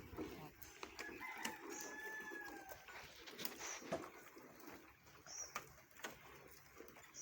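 A rooster crowing once, faint, starting about a second in and held for about a second and a half. Short high chirps repeat about every two seconds, with scattered light clicks.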